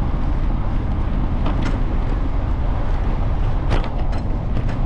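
Wind buffeting the microphone and bicycle tyres rumbling on an asphalt path during a ride, with a few light clicks and rattles about a second and a half in and again around four seconds.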